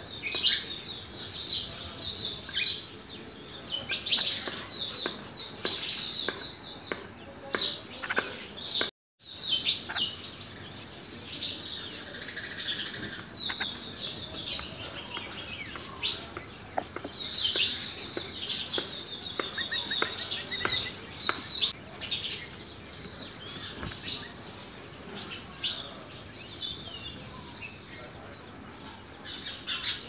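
Red-vented bulbuls chirping at the nest: many short, high calls in quick runs. The sound cuts out completely for a moment about nine seconds in.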